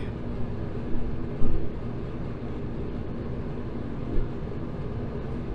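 Mr. Heater MH70KTFR kerosene forced-air radiant heater running: a steady blower-fan and burner noise with a faint low hum, about as quiet as a box fan. Two brief knocks about a second in.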